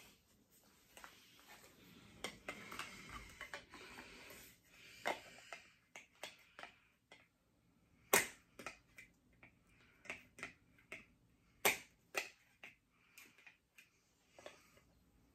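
Small clicks and knocks of an Ichigo Kurosaki statue's parts being handled and pushed together, with two sharp clicks about eight and eleven and a half seconds in. The peg is a tight fit and will not seat.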